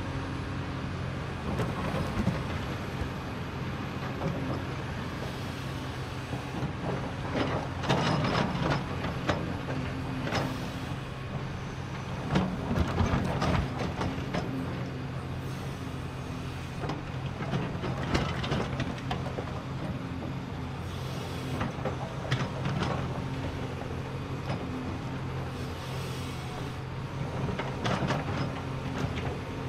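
A Caterpillar 336E excavator's six-cylinder diesel engine runs steadily under hydraulic load as the machine swings and digs. Louder stretches of noise rise and fall several times as it works.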